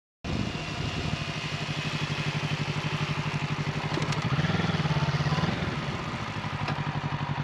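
Motorcycle engine idling with a steady, even pulse; the revs rise briefly about four seconds in, then settle back to idle.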